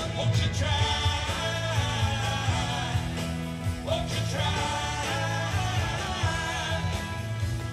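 Live rock band playing a song, with a lead vocal sung in phrases over drums and bass.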